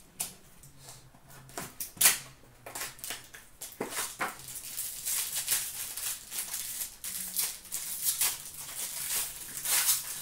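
Foil wrapper of a hockey card pack crinkling and rustling in the hands as it is opened, with a sharp snap about two seconds in.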